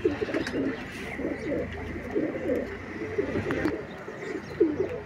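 A loft full of domestic pigeons cooing, many low coos overlapping without a break.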